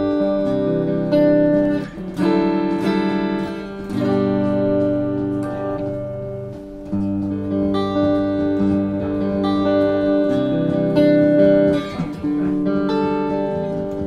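PRS DGT electric guitar played through a Mesa Rectoverb 25 combo amp with a clean tone: ringing, sustained chords and picked notes, moving to a new chord every couple of seconds.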